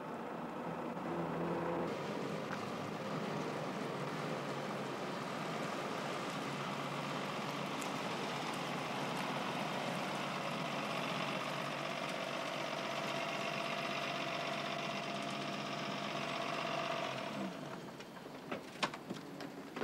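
Steady engine and road noise of a vintage 1930s-style limousine driving along. It dies away near the end, followed by a few light clicks.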